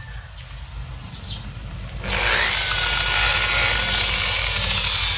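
Makita electric rotary polisher with a wool buffing pad switches on about two seconds in and runs with a steady whine at around 600 rpm, used to buff a scratch out of car paint.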